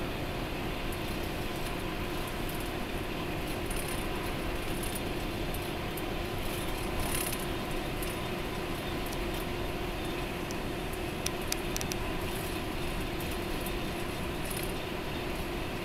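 Steady engine and tyre noise heard inside the cabin of an express bus cruising at highway speed, with a few light clicks and rattles about seven and eleven seconds in.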